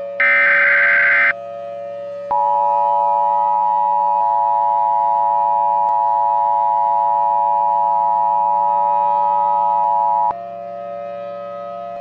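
Emergency Alert System tones: a burst of SAME header data, a shrill digital screech about a second long, then after a short gap the two-tone EAS attention signal (853 and 960 Hz together) holding steady for about eight seconds before cutting off. A steady low drone sits underneath throughout.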